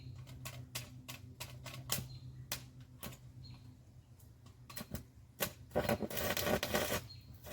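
Stick welding arc on an aluminum boat hull with 3/32-inch 4043 aluminum rods on a DC welder: irregular sharp crackling pops as short spot welds are struck, with a longer stretch of dense crackle about six seconds in. A steady low hum runs underneath.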